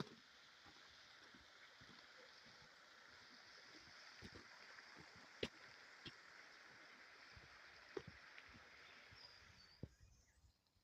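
Faint steady hiss with a few scattered sharp clicks, cutting out about ten seconds in.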